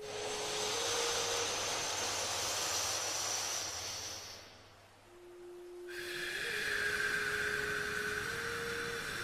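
A person slowly breathing in through the nose for about four seconds, a short pause, then a long slow breath out, the paced breaths of alternate nostril breathing. A soft steady tone lies underneath and steps slightly in pitch.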